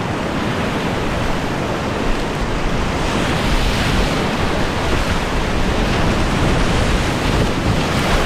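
Loud, steady rush of whitewater rapids heard from a kayak, with water and wind buffeting the life-jacket-mounted microphone; the hiss swells a little a few seconds in.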